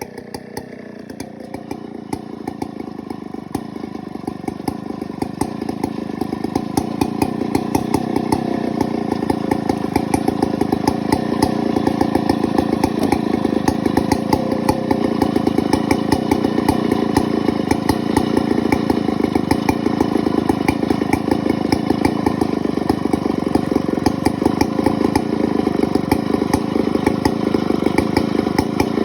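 Large two-stroke chainsaw engine running steadily with an even, fast firing beat, getting louder over the first several seconds and then holding level.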